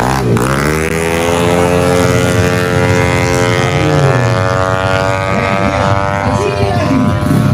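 Tuned 155cc automatic-scooter drag bike engine at full throttle. The revs dip briefly at the start, climb over about two seconds, then hold nearly steady, as a CVT automatic does while the bike gathers speed down the strip.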